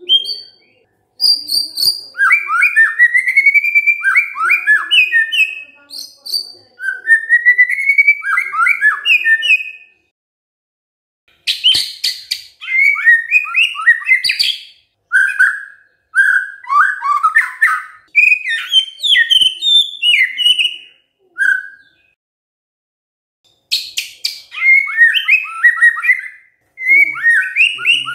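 White-rumped shama (murai batu) singing: loud, varied whistled phrases of quick rising and falling notes, in runs of several seconds with short pauses between them. Some phrases open with sharp clicking notes.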